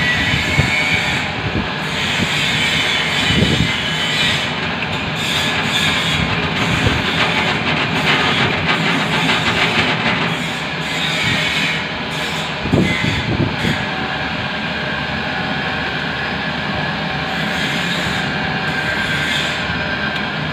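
Pillar drill press running and its twist bit cutting holes in a metal plate: a steady grinding noise with a shrill edge. Two dull knocks stand out, a few seconds in and again about two-thirds of the way through.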